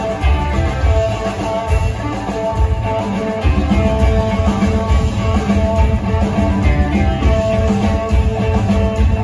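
Live rock band playing an instrumental passage: electric guitars over bass and drums. The bass and drums come in heavier about three and a half seconds in.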